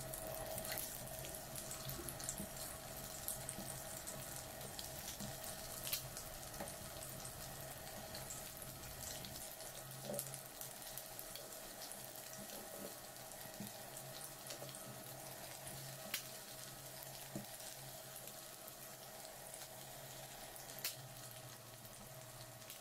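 Boiled, peeled eggs frying in hot oil in a nonstick pan: a steady gentle sizzle with scattered small crackles and a few sharper spits, over a steady low hum.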